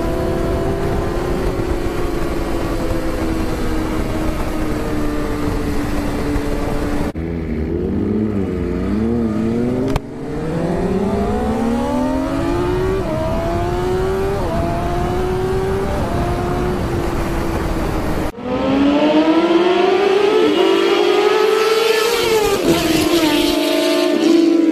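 Sport motorcycle engine at speed, its pitch climbing in long sweeps as it accelerates and dropping back at gear changes, with wind rushing over the microphone. The sound jumps abruptly about 7, 10 and 18 seconds in, and is louder after the last jump.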